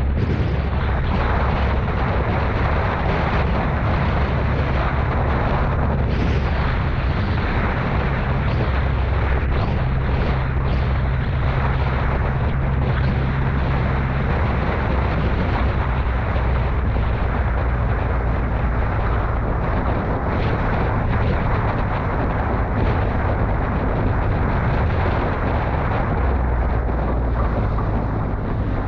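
Off-road vehicle engine running steadily under load: a loud, continuous low rumble with a rough, noisy wash on top.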